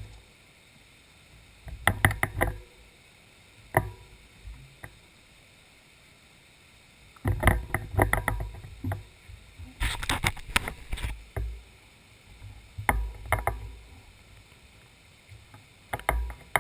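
Intermittent bursts of knocking and rattling with a low rumble, about six clusters separated by near quiet.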